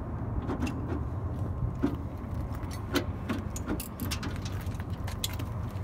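Scattered light clicks and clinks of plastic and metal parts being handled at a pickup's headlight mount and radiator support, over a steady low hum.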